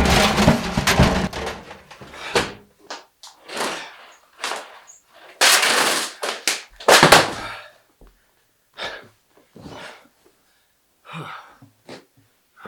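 A speaker being smashed: a long loud crash, then a string of heavy thuds and knocks that become fewer and quieter near the end.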